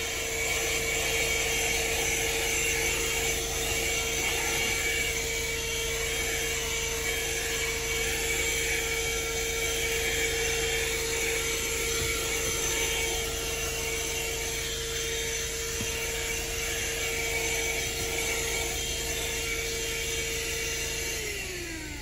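Handheld 12-volt, 150-watt car vacuum cleaner running steadily with a constant whine as it sucks at a car floor mat. Near the end its pitch falls as the motor winds down.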